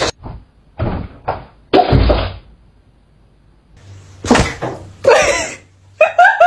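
A few short knocks and thumps in the first couple of seconds and a sharper hit about four seconds in, followed by two short pitched sounds that rise and fall near the end.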